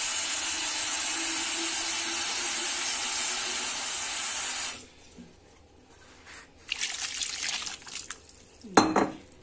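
Water running from a tap into a cooking pot of pine cones, cutting off sharply about halfway through. Then a few brief handling noises and one sharp click near the end.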